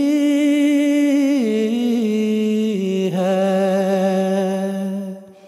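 A man's voice singing a slow, unaccompanied Urdu nazm, holding long notes with vibrato. The pitch steps down twice, and the voice fades out near the end.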